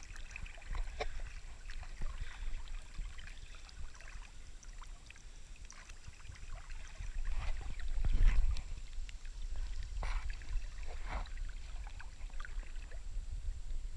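Creek water lapping and splashing right at a camera held at the water's surface, with a steady low rumble and scattered small splashes from a person floating in the current. The splashing swells louder about eight seconds in.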